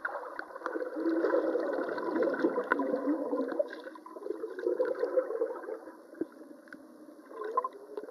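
Muffled gurgling and churning of pool water heard with the microphone underwater, as swimmers move their legs close by. The sound thins out around six seconds in and picks up again near the end.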